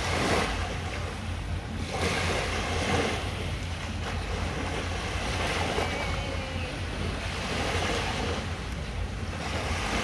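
Small waves lapping and washing onto a sandy shore, swelling every couple of seconds, with wind rumbling on the microphone.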